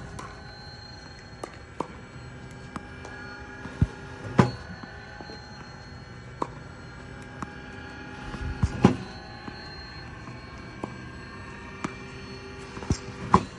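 Titan One tennis ball machine running with a steady whirring hum, and a sharp thwack of a tennis ball about every four and a half seconds, three times, with lighter ball ticks between.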